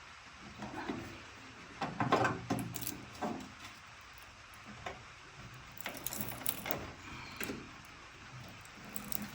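Irregular knocks and metal clunks from working a bent wheel mount on a finish mower back into shape, grouped in two bursts of handling.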